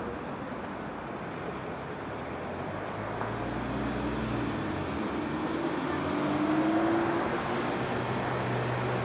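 An electric train's traction motors humming over a steady rumble. The hum comes in about three seconds in, climbs slightly in pitch, and is loudest near seven seconds.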